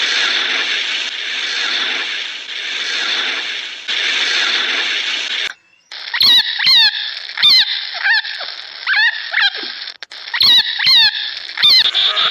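A steady hiss-like noise for about five and a half seconds, then, after a brief gap, a string of short, high animal squeals, each falling sharply in pitch.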